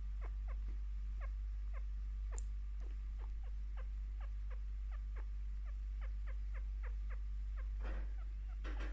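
A pet chinchilla chirping: a long run of short, quick downward-sliding chirps, about two or three a second, over a steady low hum, with a brief rustle near the end. These are chinchilla contentment chirps, made while the chinchilla is being scratched and given attention.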